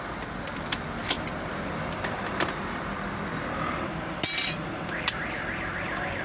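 A few light metallic clicks of hand tools, with a short metal jingle and rattle about four seconds in, over a steady background hum of traffic.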